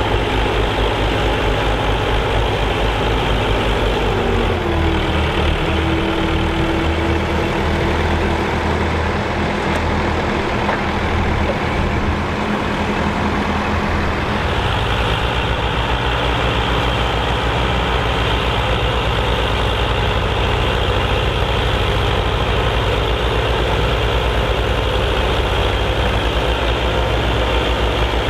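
Massey Ferguson 65 tandem tractor engine running steadily under load while ploughing. Its note drops about four seconds in and changes back about halfway through.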